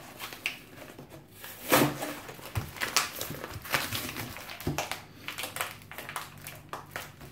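Plastic packaging crinkling and crackling as a brake pad is worked out of it by hand, with irregular small clicks and a few louder knocks of the pad against its packaging and the table.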